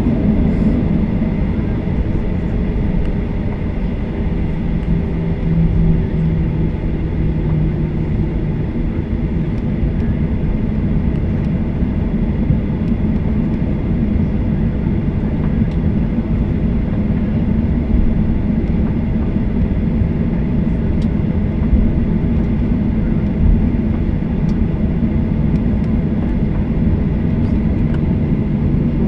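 Steady cabin noise of a Boeing 737-800 rolling on the ground after landing: a loud, even low rumble from the idling CFM56 engines and the airframe, with a low hum rising out of it for a few seconds about a fifth of the way in, and faint small rattles.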